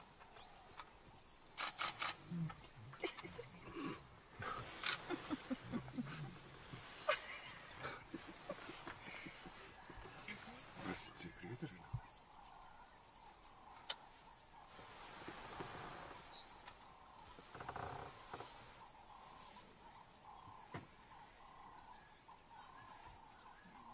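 An insect chirping in an even, rapid pulse at one high pitch, with scattered clicks and rustles, the loudest about two seconds in and again around five to seven seconds in.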